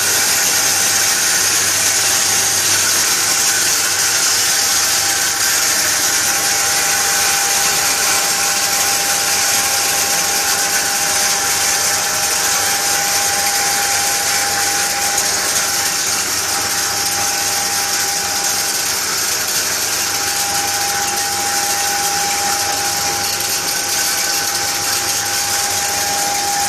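Feed pulverizer (grain grinding mill) running steadily while it sucks grain kernels up its intake hose and blows the ground powder out through a cyclone. A steady whine sits over a loud grinding rush with a low hum beneath.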